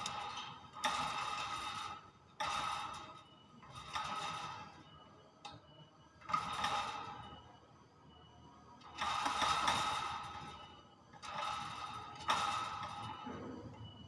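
Hill myna giving a series of loud calls, about seven in all, each about a second long with short pauses between: territorial calls aimed at a rival.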